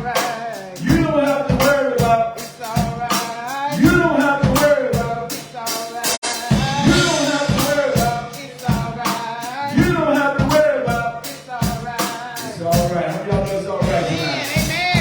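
Live gospel praise-band music: a drum kit keeps a steady beat under a bending melody line, with a momentary dropout about six seconds in.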